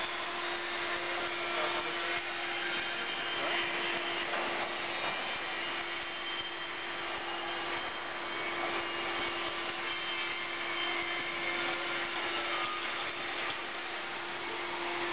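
Plate-rolling machine running as it rolls a stainless steel sheet: a steady hum under a continuous mechanical noise.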